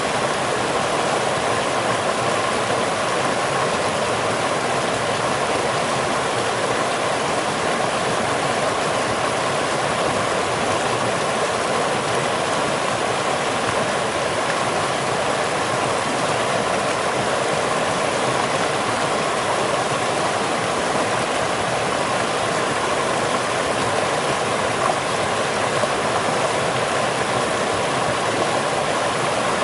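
Rushing water, a steady, unbroken noise with no change in level.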